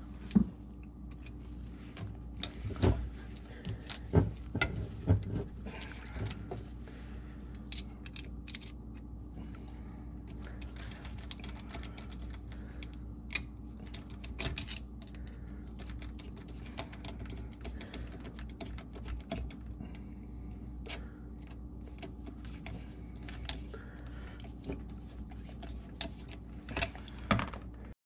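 Irregular small clicks, taps and rattles of hands and a screwdriver working at the dishwasher drain hose's connection to the plastic drain pipe under a sink, with a few louder knocks about three to five seconds in and again near the end. A steady low hum runs underneath.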